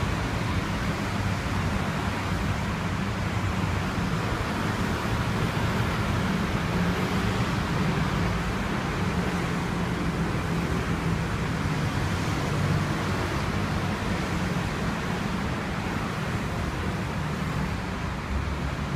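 Steady street ambience: a low hum of passing traffic with an even background rush, no distinct events.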